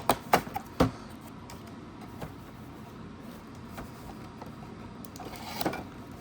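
Foil Pokémon booster-pack wrapper being handled and torn open, crinkling: a couple of sharp crinkles within the first second, quieter rustling after, and more crinkling near the end.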